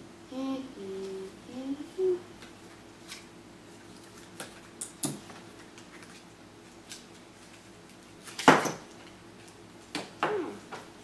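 Short hummed vocal sounds at the start, then scattered light clicks and taps as a clear plastic magnet case is handled and opened. One sharp click, about eight and a half seconds in, is the loudest sound.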